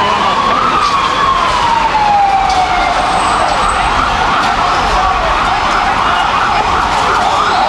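Emergency vehicle siren sounding a slow wail that falls in pitch over several seconds, then switching to a fast warbling yelp about five seconds in, over steady background noise.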